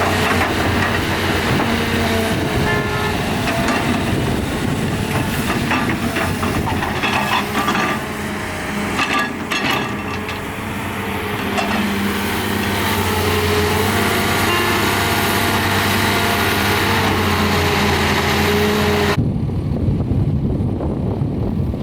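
Heavy diesel excavator engine running steadily under load, with bursts of clattering knocks in the middle, typical of a bucket digging and dumping soil. Near the end the sound changes suddenly to a duller engine drone.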